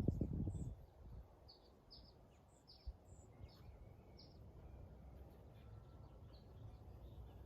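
Small birds chirping: a string of short, high chirps over the first few seconds, thinning out later, above a faint low outdoor rumble. A dull thump and rustle at the very start is the loudest sound.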